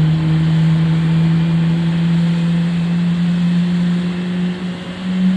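Boeing 777-300 jet engine starting: a loud, steady drone whose pitch slowly rises as the engine spools up.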